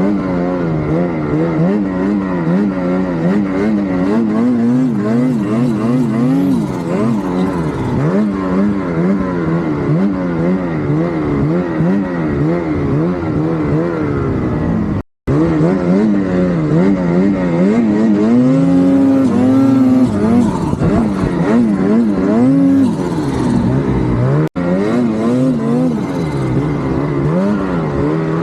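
Turbocharged vehicle engine running, its pitch wavering up and down about twice a second with a faint high whistle above it. The sound breaks off for an instant twice.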